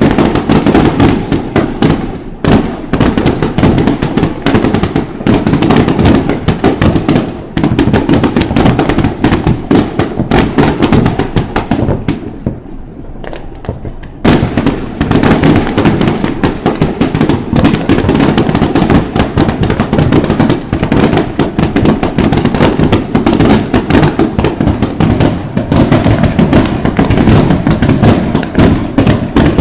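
Aerial fireworks bursting: a dense barrage of bangs and pops in quick succession. It thins out briefly a little under halfway through, then picks up again just as thick.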